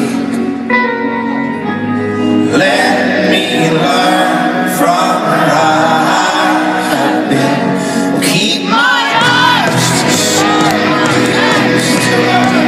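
Live rock band playing loud in a concert hall, heard from the audience: a male singer over strummed acoustic guitar and electric guitar.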